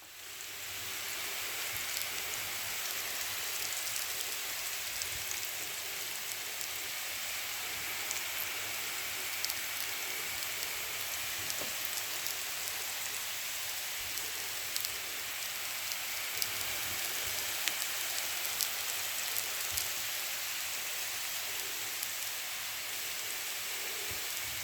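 Potatoes and pork frying in hot oil in a pan: a steady sizzle with scattered small pops and crackles, swelling up in about the first second.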